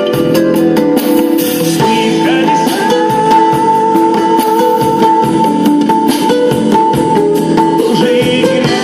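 Live band music: guitar over a steady beat, with a long held high note from about two seconds in until near seven seconds.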